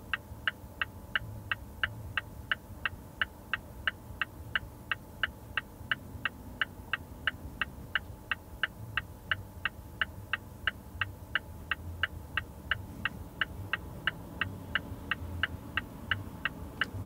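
Mazda CX-5 interior turn-signal tone: an even ticking, about three ticks a second, over a steady low hum from the car.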